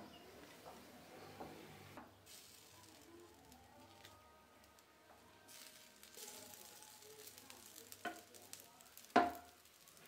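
Quiet scraping and rustling as a wooden spoon stirs and fluffs cooked rice in an aluminium pressure cooker, with one sharp knock near the end.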